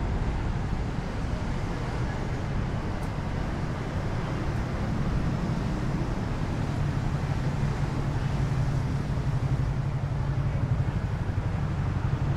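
Road traffic: a steady low rumble of vehicles, a little louder in the second half.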